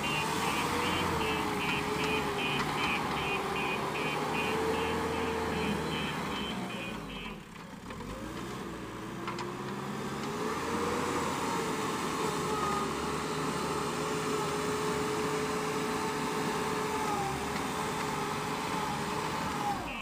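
JCB backhoe loader's diesel engine running under load as the front bucket pushes sand, its pitch rising and falling with the throttle. A high beeping repeats about three times a second through the first six seconds, then stops.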